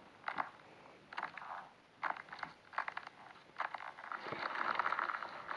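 Slime being squeezed and worked by hand, making short sticky crackles and pops. Near the end these run together into a denser, steady crackle.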